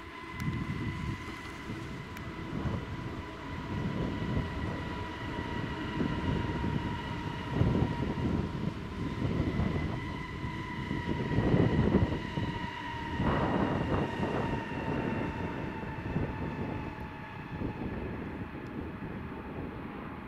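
ÖBB Vectron electric locomotive hauling an empty autorack train as it approaches: a steady two-tone electric whine that sinks slightly in pitch, over a low rumble that swells several times.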